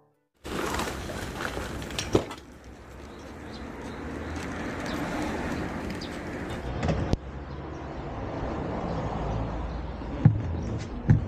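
Steady outdoor background noise with a few sharp knocks and clicks, the loudest near the end, as a rider handles his small motorcycle loaded with camping bags.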